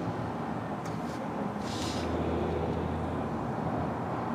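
A car engine running steadily at idle, a low even hum, with a brief hiss about two seconds in.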